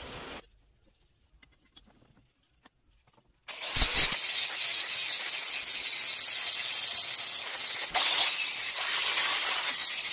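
Angle grinder cutting and grinding into a steel knife blank held in a vise. After a quiet stretch it comes in sharply about a third of the way in as a loud, steady, harsh grinding, with a brief break near 8 seconds.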